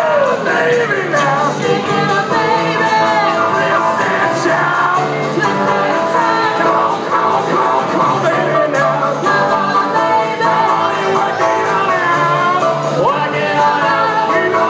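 Live band playing a rock song on acoustic and electric guitars and keyboard, with a voice singing over it.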